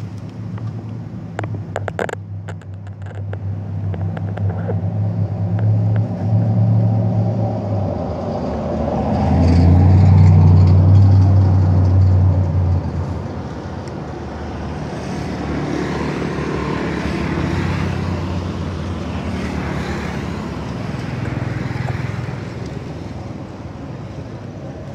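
Motor vehicles passing on a road, a low engine drone that swells to its loudest about ten seconds in and fades, then another smaller pass later. A few faint clicks in the first seconds.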